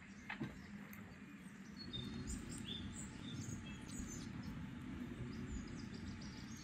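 Small birds chirping and calling in short high notes over a low steady background rumble, with a couple of light knocks near the start.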